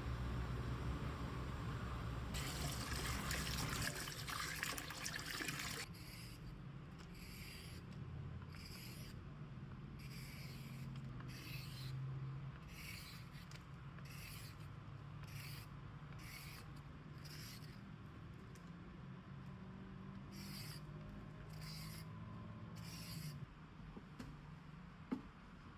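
Water runs briefly from a kitchen tap for a few seconds near the start. Then a carrot is scraped in short rasping strokes, roughly one a second, as it is prepared for carrot jam.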